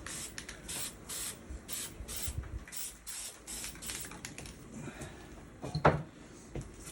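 Aerosol spray paint can hissing in a rapid series of short bursts. A sharp knock about six seconds in is the loudest sound.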